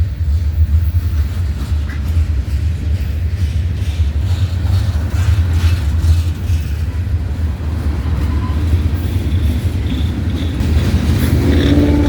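Train rolling past, a heavy steady low rumble of wheels on the rails with faint clicks. A held tone of several pitches starts near the end.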